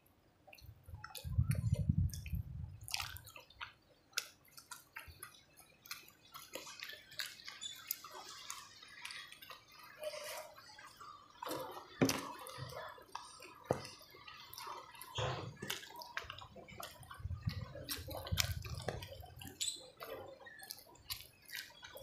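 Close-up wet eating sounds: fingers picking through fish and rice in coconut-milk curry, with chewing, lip smacks and many small sticky clicks.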